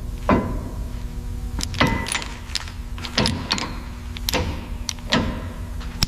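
A series of about seven sharp knocks and clinks at irregular intervals, several ringing briefly, over a steady low hum.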